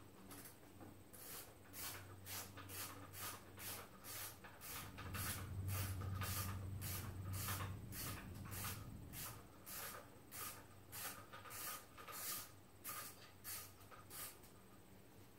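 A hand tool worked in quick repeated strokes under a car, about two strokes a second, with short hissy scrapes over a low steady hum that grows louder for a few seconds mid-way.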